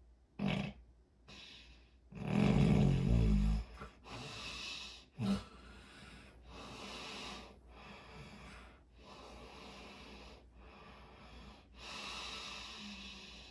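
Sleeper snoring: a short snort just after the start, one long, loud snore with a low buzz about two to three and a half seconds in, and another brief snort around five seconds. A run of softer, airy breaths follows.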